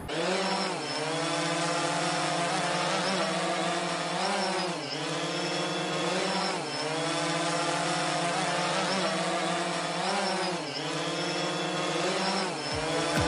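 Small quadcopter drone's propellers buzzing steadily, the pitch dipping briefly and recovering a few times as the throttle changes.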